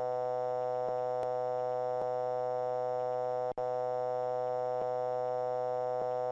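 Steady synthetic droning tone with many overtones, unchanging apart from a brief dropout about three and a half seconds in. The stall warning is silent: with the angle of attack past 40 degrees, the A330's stall warning is inhibited.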